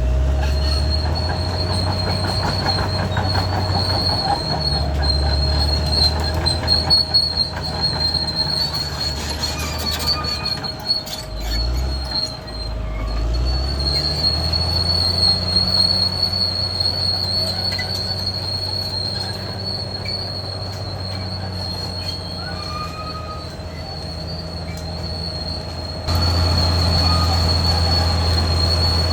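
Caterpillar D6R XL crawler bulldozer working: the diesel engine runs under load while the steel tracks squeal and clatter. About twelve seconds in the engine note drops, then climbs back up, and near the end the sound suddenly gets louder.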